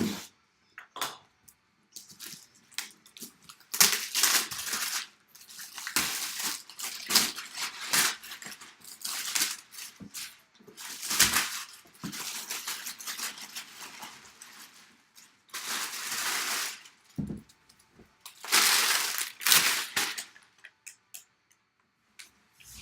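Plastic shrink wrap being torn and pulled off a sealed cardboard box, in irregular bursts of ripping and crinkling with short pauses between them.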